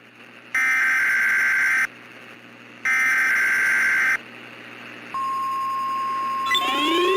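Emergency Alert System SAME header: two bursts of warbling digital data tones, each about a second long, then a steady NOAA Weather Radio warning alarm tone about a second later, announcing a new warning. Rising siren-like tones join in near the end.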